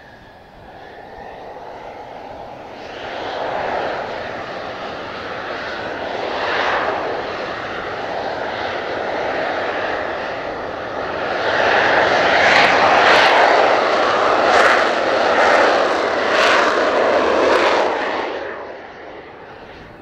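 Mitsubishi F-2B fighter's General Electric F110 turbofan jet engine running as the aircraft taxies. It builds up from a couple of seconds in, is loudest in the second half with a few sharp crackles, then fades near the end.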